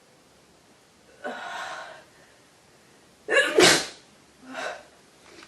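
A person with a head cold sneezing. A drawn-out voiced 'ahh' comes about a second in, then one loud sneeze a little over three seconds in, and a shorter, quieter sound just after it.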